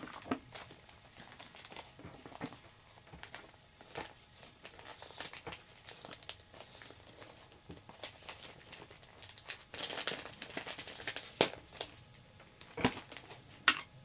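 Plastic comic-book bag crinkling and rustling as it is handled, with scattered sharp clicks and a busier stretch of crinkling about ten seconds in.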